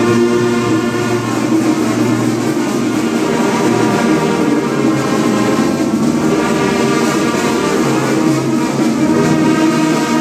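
A large brass band of sousaphones, trumpets and other brass, with bass drums and snare drums, playing loudly and steadily in sustained chords.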